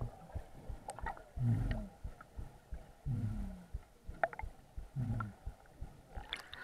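Muffled sound heard with the camera under the lake water: three low, slightly falling tones, each about half a second long and spaced roughly a second and a half apart, with scattered small clicks and knocks between them.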